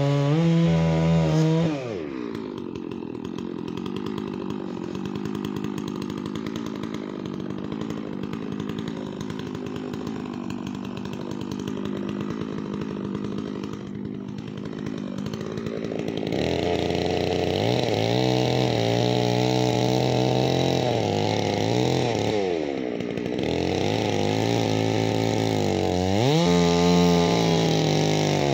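Two-stroke gas chainsaw finishing a cut at full throttle, then dropping to a steady idle for about fourteen seconds. It then revs back up and runs at high speed, its pitch sagging and rising as it cuts into the wood again.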